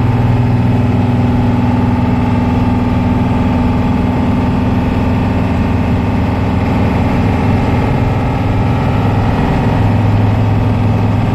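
Blue Bird school bus engine running steadily under way in third gear, with an even drone.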